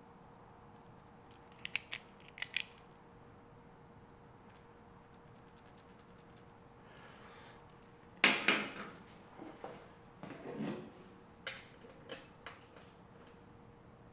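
Light clicks and taps of small tools and parts being handled on a metal bellhousing, with a louder clatter about eight seconds in followed by a few scattered knocks.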